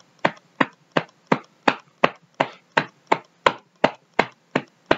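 A man thumping his own chest with his fist: a steady run of short dull thuds, about three a second.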